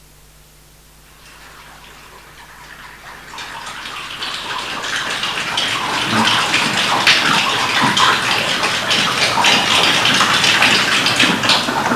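A choir imitating rain: a dense patter of many small clicks and hiss that swells from faint to loud over about five seconds and then holds, part of a graphic-score water-music piece.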